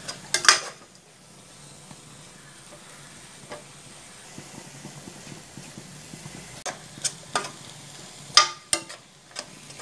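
Metal spoon stirring sliced onions frying in a little sunflower oil in a metal pot, with a faint steady sizzle. The spoon knocks and scrapes against the pot now and then, loudest about half a second in and again near the end.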